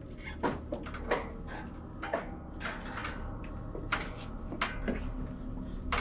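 Wooden folding attic ladder being unfolded and stepped on: a string of irregular wooden knocks and clunks over a low hum, with a steady low tone coming in about five seconds in.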